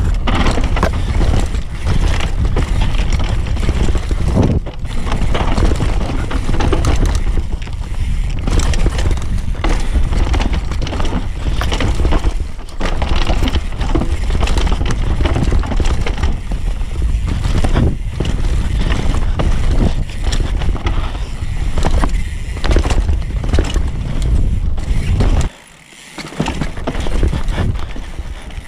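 Mountain bike ridden fast down a rough dirt and rock trail: wind noise on the bike-mounted microphone with steady knocks and rattles of the bike over roots and rocks and the tyres scraping the dirt. Near the end the noise cuts out suddenly for under a second, then comes back quieter.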